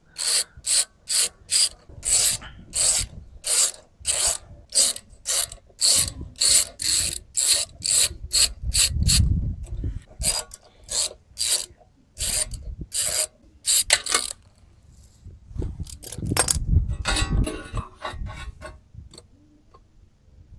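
A ratchet clicking in quick, even strokes, about two or three clicks a second, stopping about fourteen seconds in. Low handling rumbles come in the middle and again just after the clicking stops.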